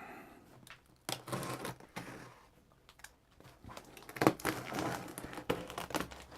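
Packaging being opened and handled: irregular rustling and crinkling with sharp clicks and knocks, in bursts about a second in and again from about four seconds.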